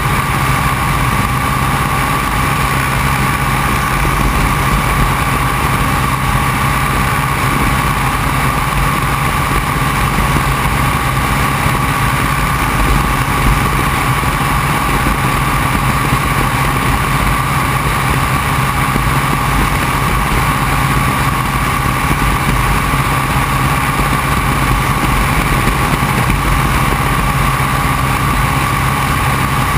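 Open-cockpit biplane's engine running steadily in flight, with the rush of air past the open cockpit. The drone holds one even pitch and loudness throughout.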